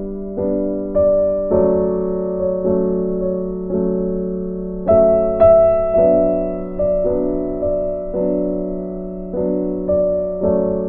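Background piano music: slow chords and melody notes, each struck and then fading, with a brighter high note about five seconds in.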